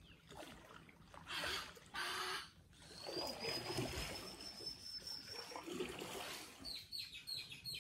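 Water lapping and splashing against a small boat's hull in a few soft bursts. About three seconds in, a long, thin high-pitched call holds for over two seconds; near the end, a quick run of short high chirps.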